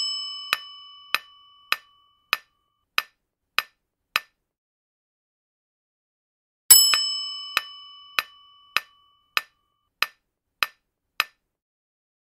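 Quiz sound effects: a bright bell-like chime fading away, then a countdown timer ticking seven times, about one and a half ticks a second. The same chime rings again about six and a half seconds in, followed by seven more ticks.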